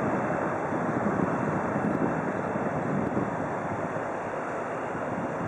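Wind blowing on the microphone: a steady rush of noise with no distinct tones.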